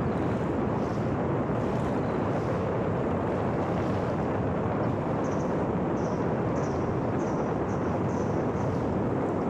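Steady wind rush with the drone of an electric RC airplane in flight, heard through the microphone of a camera riding on the plane. Faint short high chirps repeat about twice a second in the second half.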